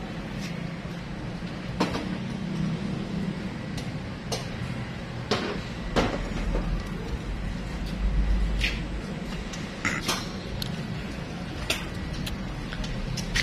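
Scattered, irregular clinks and knocks of hand tools and metal engine parts being handled during an engine overhaul, over a steady low hum, with a low rumble midway.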